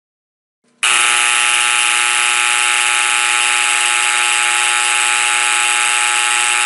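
Faraday Type 512 electromechanical fire alarm horn, powered by 120 V AC, sounding a loud, steady, buzzy horn tone that starts suddenly about a second in and holds without change.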